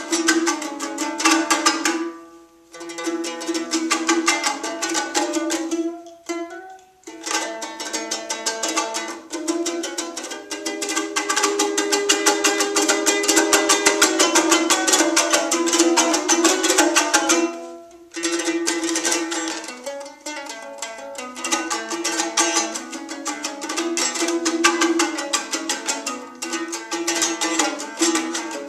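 Kyrgyz komuz, a three-string fretless lute, strummed fast in a solo küü, with a steady low note running under the melody. The playing breaks off briefly about two, six and eighteen seconds in.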